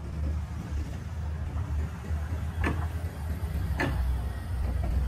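Street ambience: a steady low rumble, with two sharp clicks about a second apart near the middle.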